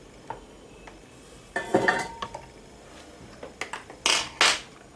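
Small metal hand tools clinking and clattering: a cluster of sharp, briefly ringing clinks about two seconds in, then two louder clatters near the end.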